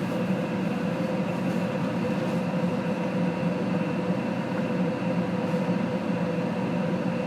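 A steady mechanical hum with a few constant tones in it, holding even throughout.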